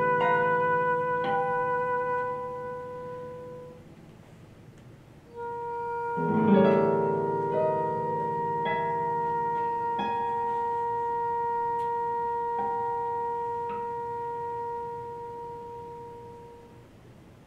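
Oboe and classical guitar duo playing slow music. A long held oboe note fades out about four seconds in. After a short hush the oboe takes up another long sustained note over a few plucked guitar chords, and it slowly dies away near the end.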